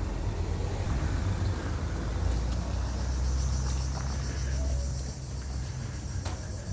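Low, steady rumble of a motor vehicle's engine running nearby, fading about five seconds in, with a few faint clicks over it.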